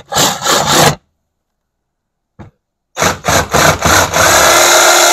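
Metabo HPT jigsaw with a Diablo wood blade, orbital action off, cutting a wooden board: it runs in short spurts that start and stop, falls silent for about two seconds, then starts again in a few spurts and settles into steady cutting. The repeated stopping is the saw being worked hard through the cut, as it had to be stopped a couple of times to get it through.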